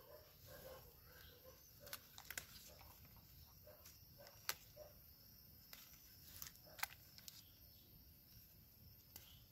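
Near silence: faint rustling of chili plant leaves and a few sharp snaps as ripe chili peppers are picked off the plant by hand.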